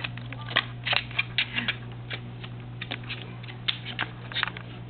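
African grey parrot's beak and claws working at a cardboard box: irregular sharp crackles and clicks as it crunches and scratches the cardboard.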